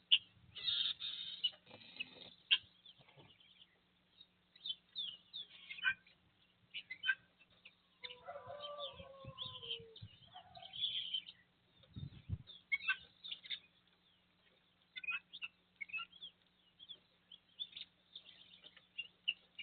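Small birds chirping and singing in short, quick high phrases, with a lower, falling call for about two seconds near the middle and a single low thump a little after it.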